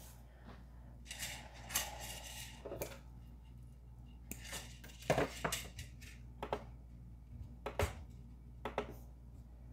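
Scattered light clicks and taps of hands feeding filament into a Prusa MK3S+ extruder and pressing its control knob, over a steady low hum. No extruder motor starts: the filament autoload is not catching, because the IR filament sensor is not detecting the filament.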